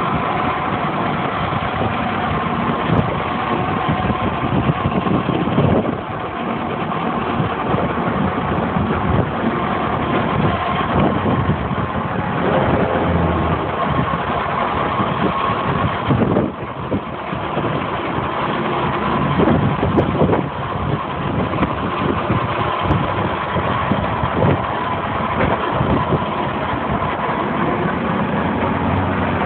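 H1000 tub grinder running off a tractor's PTO shaft, grinding a round hay bale: a steady, loud mix of tractor engine and grinder noise.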